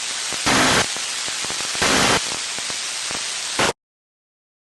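Radio static hiss broken by two short, even data bursts about 1.3 s apart. These are the last two of the three Emergency Alert System end-of-message (EOM) bursts that close an alert. A brief click follows, and then the audio cuts off to silence.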